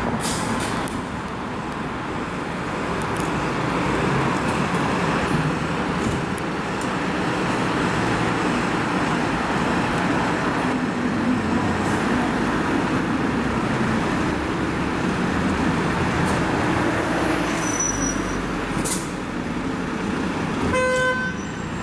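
Fire engines' diesel engines running with a steady rumble, mixed with traffic noise. Near the end comes a short horn toot.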